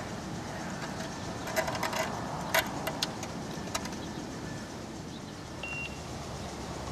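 A quick flurry of light metallic clicks and clinks, like small hardware or keys being handled, starting about a second and a half in and lasting about two seconds. A single short high beep from an electronic device follows near the end, over steady low background noise.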